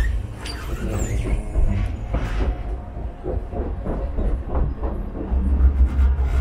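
Sheffield Supertram running along the line, heard from inside the passenger saloon: a steady low rumble of the tram's wheels and running gear on the rails, growing louder near the end.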